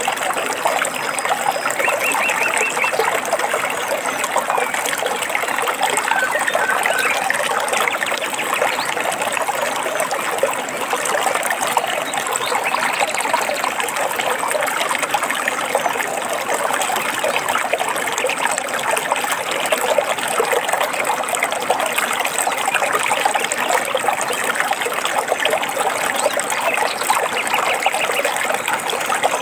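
Small stream trickling and splashing steadily over rocks, with a few short bird chirps now and then.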